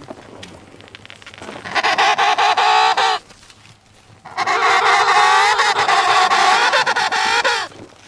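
Emperor penguin calling: two loud, long, pulsing trumpet calls, the second about twice as long as the first, each cutting off abruptly.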